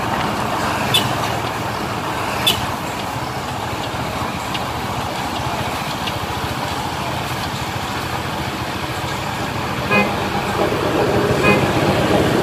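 Motorcycle running steadily through a loud aftermarket Luragung 'ngorok' exhaust, a rough rumble, with two short tooting tones near the end.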